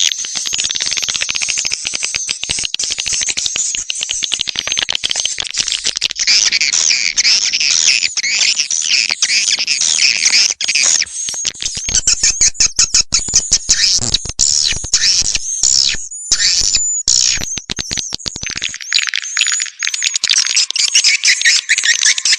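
Swiftlet call-sound lure track: dense, overlapping high chirps and twitters from many swiftlets, played to draw wild swiftlets to a nesting house. Through the middle it turns choppy, with fast stuttering chatter and brief breaks.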